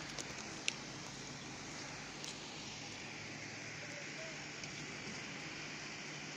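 Steady, faint outdoor background hiss with a low hum, broken by a few short sharp clicks in the first couple of seconds.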